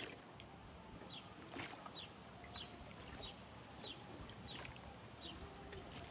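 A bird calling a steady series of short, high, falling notes, roughly one every two-thirds of a second, over faint outdoor background noise.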